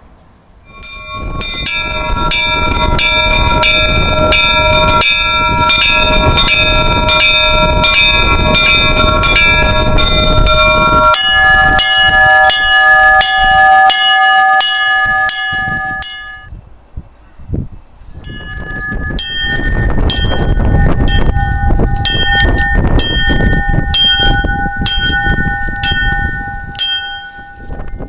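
Russian Orthodox church bells rung from ropes, heard close up in the belfry: a peal of several bells of different pitch struck about twice a second. The tune changes about eleven seconds in, the ringing stops briefly after sixteen seconds, then starts again.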